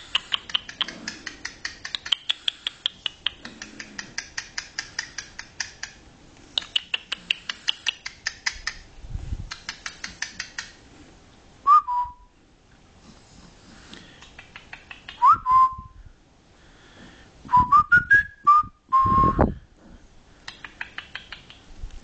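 Cockatiel whistling: a few short whistled swoops that rise and then settle, and a phrase of quick rising notes in the second half. They follow a long run of rapid soft clicks, about five a second, and the clicks start again near the end.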